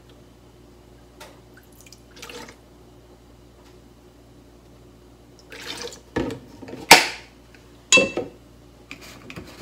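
Sake poured from a plastic bottle into a metal measuring spoon and tipped onto washed rice in a rice-cooker pot: faint trickling and drips, then a loud sharp click and a ringing metallic clink of the spoon against the pot in the second half.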